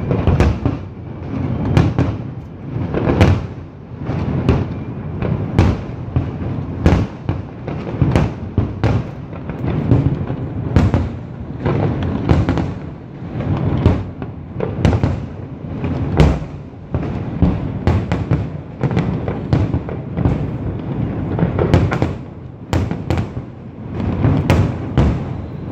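Fireworks display: a rapid, continuous barrage of shell bursts and crackling, several bangs a second over a rolling rumble.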